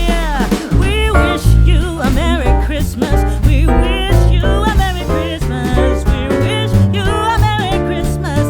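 Background pop song with a sung vocal melody over bass and a steady beat.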